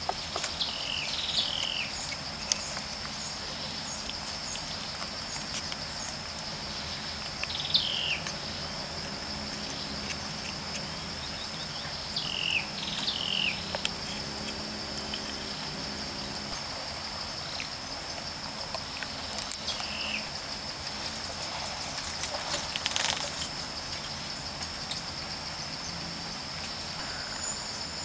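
Forest ambience: a steady, high-pitched insect drone with short, downward-sweeping bird calls every few seconds, twice in quick succession about a second in and again around the middle. A few light clicks and taps are scattered through it.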